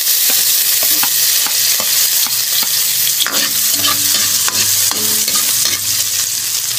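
Chopped garlic frying in hot oil in a steel wok, a loud steady sizzle, with a metal spatula scraping and clicking against the pan as it is stirred.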